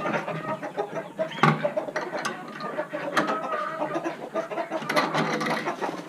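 Chickens clucking in short, repeated calls, with a few sharp clicks or knocks scattered among them.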